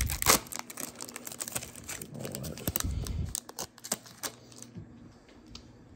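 Foil wrapper of a baseball card pack crinkling and tearing as it is pulled open by hand, in quick crackles and clicks that die down after about four and a half seconds.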